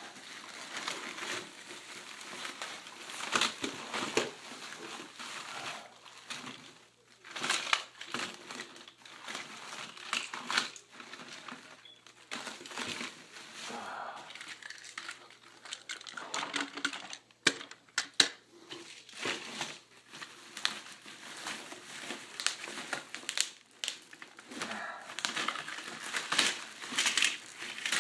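Rummaging through a box of toy trains: packing material and plastic bags crinkling and rustling, with irregular sharp clicks as the toy engines and coaches knock together.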